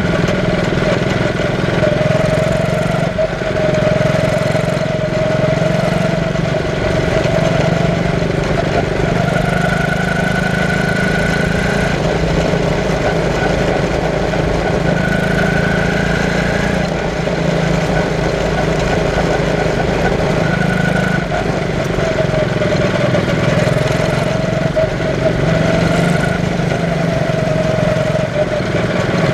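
Quarter midget race car's small single-cylinder engine running hard at racing speed, heard from the driver's seat. Its note holds steady, wavering slightly in pitch every few seconds as the car goes around the short oval.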